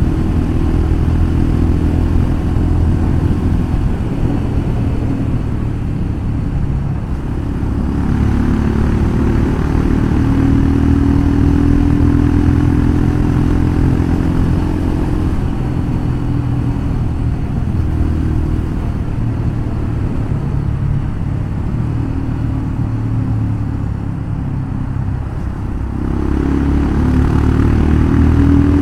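Royal Enfield Himalayan Scram 411's single-cylinder engine running through a full-system Powerage aftermarket exhaust under changing throttle. The exhaust note drops about four seconds in, climbs again from about eight seconds, dips again late on and rises near the end.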